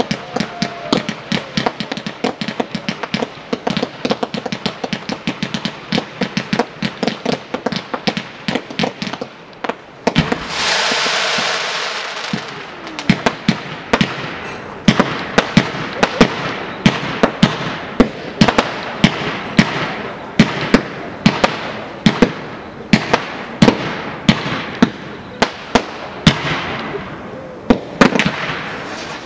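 Fireworks display: a rapid, continuous string of sharp bangs and crackles from bursting shells and stars, with a steady hiss lasting about two seconds about ten seconds in.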